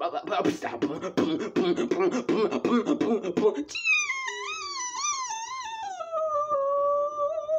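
Vocal beatboxing: rapid mouth-made percussion of clicks and snare-like hits, then, a little under four seconds in, a high wavering sung note that slides down and holds steady near the end.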